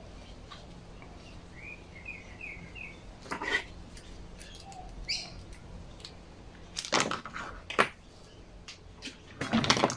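Small-parts handling: soft rustles and clicks as a carburetor and rubber fuel line are worked into place on a trimmer engine by gloved hands, louder toward the end. A bird chirps a quick run of about six notes about two seconds in.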